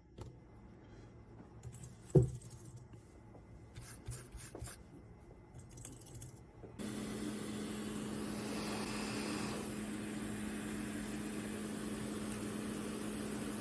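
Faint clicks and taps of small parts being handled, with one sharp click about two seconds in. About seven seconds in, a steady hum and hiss starts suddenly and carries on.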